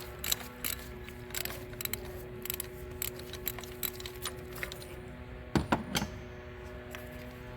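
Hand tools working on the solenoid's bolts: a socket and ratchet clicking and clinking irregularly against metal, with a couple of louder clanks about five and a half seconds in.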